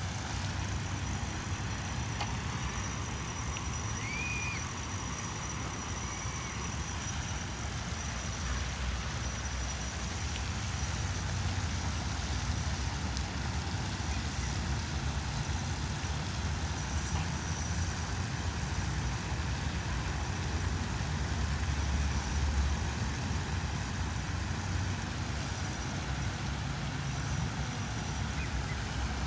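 Steady low outdoor rumble with a hiss above it, unbroken throughout, and a short high chirp about four seconds in.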